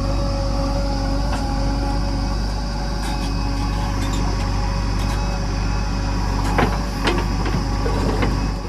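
Heavy diesel engine running steadily, with a few sharp knocks or rattles near the end.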